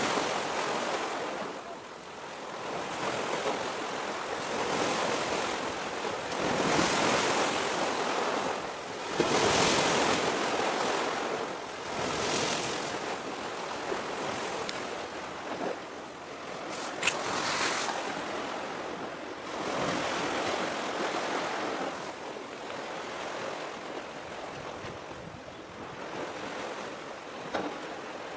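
Sea waves washing against a concrete tetrapod breakwater, the surf swelling and ebbing every few seconds, with wind on the microphone.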